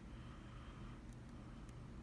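Faint clicks of a lock pick working the pins of a Mul-T-Lock MT5 cylinder, two light ticks over a steady low hum.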